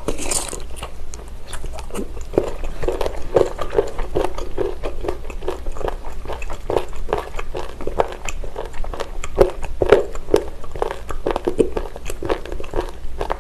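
Close-miked chewing of a mouthful of raw abalone slices from cold abalone mulhoe: a steady run of small, quick, moist clicks and crackles from the teeth and mouth, several a second.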